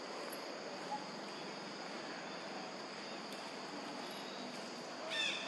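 Steady high-pitched buzzing of insects in an outdoor chorus. A brief, high, chirping animal call cuts in about five seconds in.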